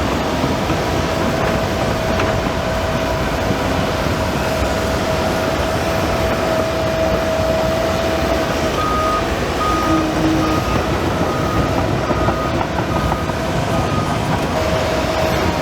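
Develon DD130 crawler bulldozer working: engine running, tracks clanking and a steady whine. From a little past halfway a reversing alarm beeps repeatedly, about twice a second.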